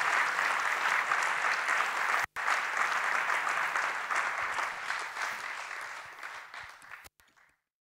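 Audience applauding, with a brief break a couple of seconds in, fading out and cutting off about seven seconds in.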